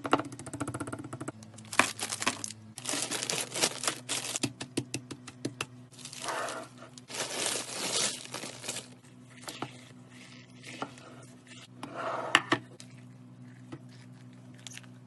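Crinkly wrapping being handled and torn in irregular bursts with sharp little clicks, over a steady low hum.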